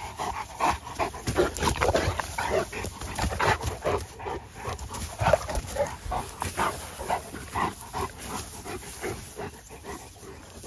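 Cane Corsos and pit bulls panting hard in quick, irregular breaths, worked up after rough play-fighting.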